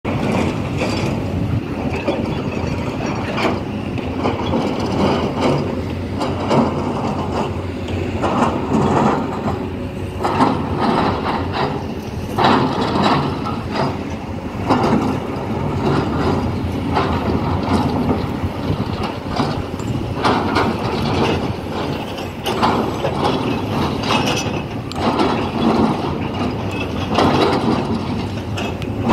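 Heavy earthmoving machinery at work: excavator and dump truck diesel engines running, a steady mechanical din with irregular surges every second or two.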